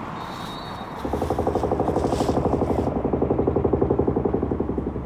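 Mantis concrete demolition hammer pounding the concrete of a tall smokestack, a rapid, even run of blows that starts about a second in and stops abruptly near the end.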